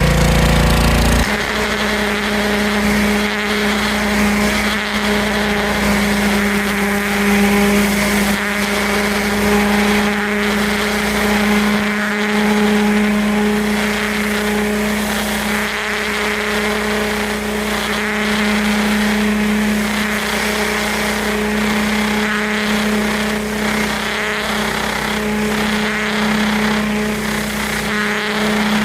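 Gas-engine pressure washer running steadily: a constant engine hum under the hiss of the water spray.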